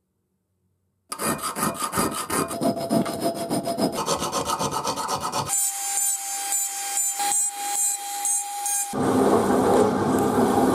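Metalwork on a hacksaw frame's steel parts. After about a second of quiet come rapid back-and-forth rasping strokes on the steel. Midway there is a steady high whine with scraping strokes over it, and near the end a drill press cuts into the small steel part and stops abruptly.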